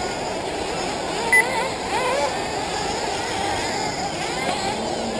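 Several 1/8-scale nitro RC buggy engines racing together, a dense buzz whose pitch keeps rising and falling as the cars rev and back off. A short high beep sounds about a second and a half in.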